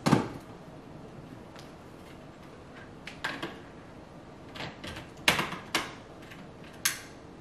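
Scattered clicks and knocks of plastic plugs and a power strip being handled on a countertop as a charger is plugged in, about seven separate knocks with the sharpest about five seconds in.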